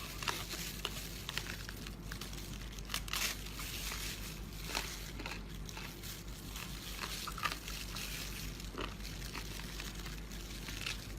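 Close-up chewing and crunching of crunchy sea anemone: irregular crackly crunches over a low steady hum.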